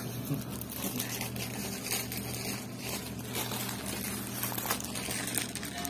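Room noise during a shared meal on the floor: a steady low hum under scattered light clicks and rustles from plates, bowls and plastic cups.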